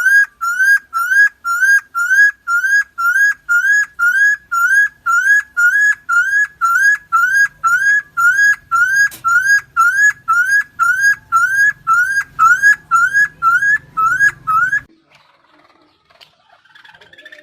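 Helmeted friarbird (Philemon buceroides) calling: a long, even run of short rising whistled notes, about two a second, which stops a couple of seconds before the end.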